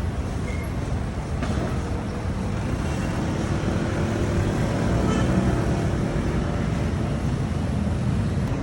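Road traffic rumbling steadily, with a vehicle engine passing and growing loudest about five seconds in.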